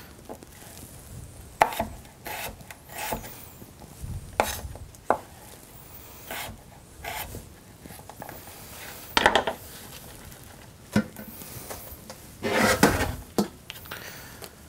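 Knife slicing a cucumber and scraping the slices on a wooden cutting board: irregular sharp knocks of the blade on the board, with a louder run of knocks and scrapes near the end.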